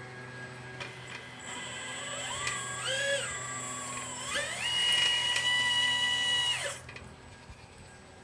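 Small electric motor whining, its pitch stepping up and down as its speed changes, then cutting off suddenly about a second and a half before the end, over a steady low hum.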